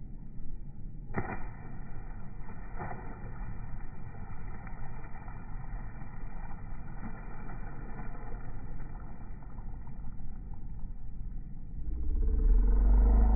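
Steady low rumble of distant city traffic, with two sharp knocks about a second and three seconds in. A louder low rumble comes in near the end.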